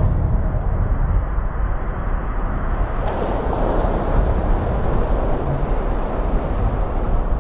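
Ship's bow breaking through sea ice: a deep, steady rumble with a rushing, grinding noise of ice and water, which swells a little from about three seconds in.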